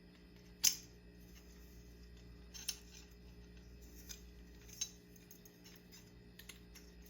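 Handling the parts of a ceiling fan light kit: one sharp click about half a second in, then a few lighter clicks and clinks of wires, socket and small metal parts, over a low steady hum.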